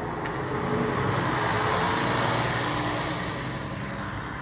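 A bus driving by, a film sound effect: a low engine hum with road noise that swells to a peak about two seconds in and then eases off.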